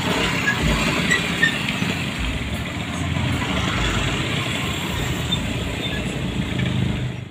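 Passing traffic: a Mitsubishi Colt T120SS pickup and several motor scooters drive by close up, engines running and tyres on the road surface, as a steady mix of engine and road noise.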